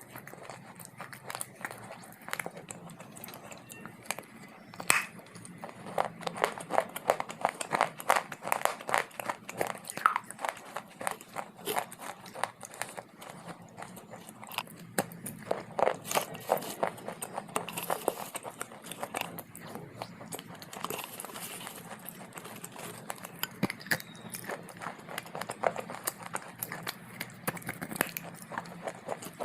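Someone biting and chewing dry clay: a fast run of crisp crunches. They come thickest and loudest in two stretches, about six to ten seconds in and again around fifteen to eighteen seconds in.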